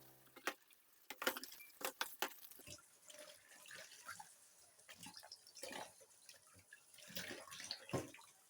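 Faint running and splashing water with scattered light clicks and knocks, the sharpest about a second in and near the end.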